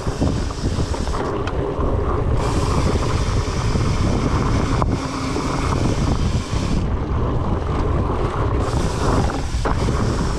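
Wind rushing over the microphone of a rider on a fat-tyre mountain bike rolling along a dirt trail, with a steady low rumble from the tyres and a few sharp knocks from the bike over bumps.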